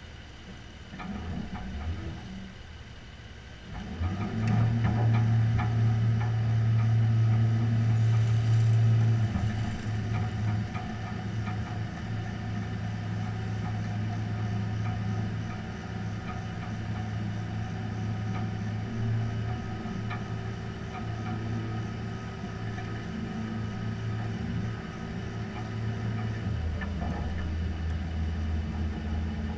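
Tow truck's engine running with a steady drone. It picks up sharply about four seconds in and eases slightly after about nine seconds, with light clicks and rattles over it.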